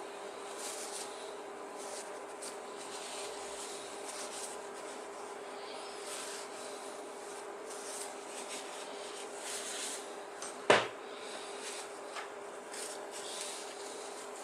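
Steady hum with light rubbing and handling sounds over it, and one sharp click a little past two thirds of the way through.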